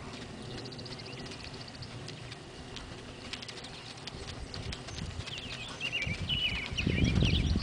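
Hoofbeats of a buckskin crossbred horse moving on soft arena dirt, growing louder near the end as the horse comes closer. Birds chirp and sing in the background.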